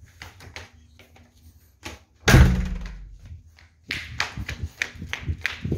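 A door shuts with a single heavy thunk about two seconds in. Then footsteps start, two or three steps a second.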